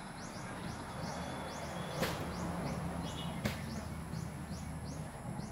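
Rural outdoor ambience: a steady low rumble under a thin, steady high tone, with a regular series of short high chirps at about two a second. Two sharp clicks come about two and three and a half seconds in.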